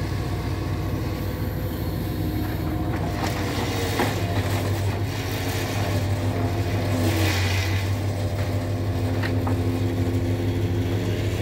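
Diesel engine of a MAZ timber truck running steadily under the load of its loader crane, its note shifting as the crane works. Slab-wood boards knock a few times, and there is a brief rushing noise about seven seconds in.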